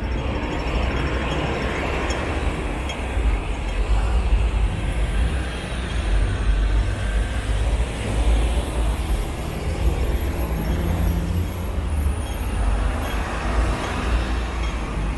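Road traffic on a city street: vehicles running past in a steady, noisy wash with a deep rumble.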